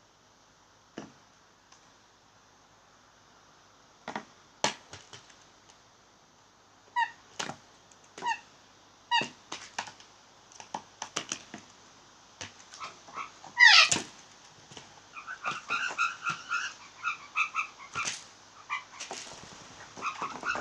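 Blue jays making odd calls: sharp clicks and knocks, then short harsh calls with a louder falling call about two-thirds of the way in, followed by a quick run of short notes.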